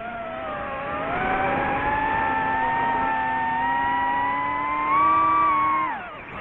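DJI FPV quadcopter's brushless motors and propellers whining, rising in pitch about a second in as the throttle comes up. The pitch holds fairly steady, climbs a little near five seconds, then drops steeply near the end as the motors spool down.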